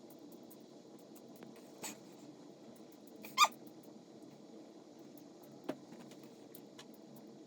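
A few short squeaks that fall in pitch, the loudest about three and a half seconds in, over a faint steady hum.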